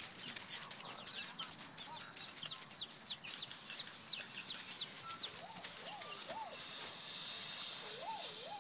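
Baby chicks peeping: a quick run of high, short chirps in the first half. Later a lower, wavering whine rises and falls a few times, in two spells.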